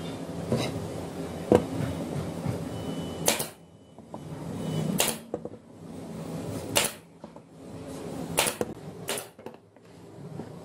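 Pneumatic brad nailer firing into the corner joints of a wooden box: five sharp shots spaced one to two seconds apart, the last two close together. A steady background hum stops just before the first shot.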